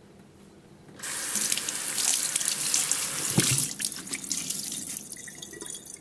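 Water running from a tap, starting about a second in and easing off after about three seconds, with a brief click partway through.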